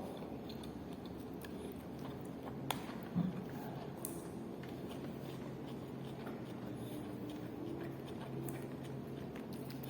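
Quiet eating: faint chewing, with a sharp click about three seconds in, over a low steady hum.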